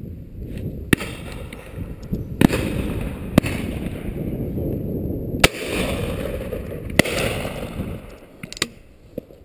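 Shotgun shots on a driven pheasant shoot: about six sharp reports spread through a few seconds, the loudest about two and a half and five and a half seconds in, over a steady low rumble.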